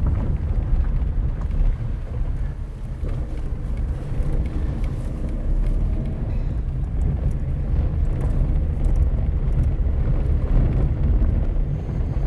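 Car driving along, heard from inside the cabin: a steady low rumble of engine and tyres.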